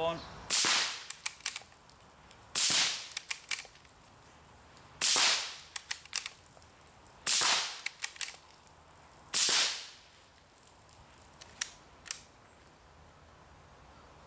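.17 HMR bolt-action rifle fired five times as fast as the bolt can be worked, about two seconds apart, each sharp crack trailing off briefly. Between shots come the small metallic clicks of the bolt being cycled, with a last couple of clicks about two seconds after the fifth shot.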